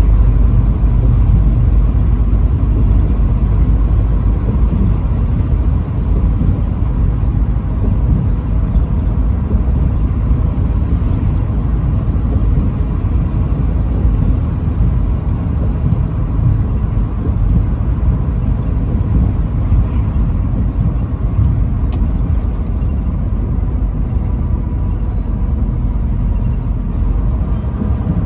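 Steady low road rumble of a vehicle driving along: tyre and engine noise, with a faint steady whine running through it.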